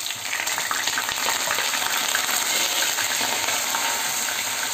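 Grated onion sizzling in hot oil in a nonstick kadai, stirred with a wooden spatula: a steady hiss that swells as the onion hits the oil, with small crackles through it.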